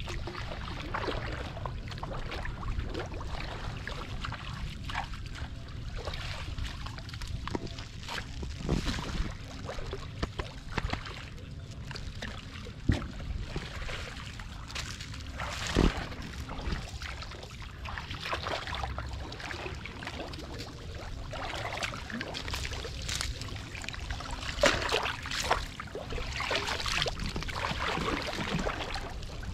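Muddy paddy water sloshing and splashing as a person wades and drags a woven bamboo scoop basket through it, with a few sharper splashes along the way; near the end water pours and trickles out of the lifted basket.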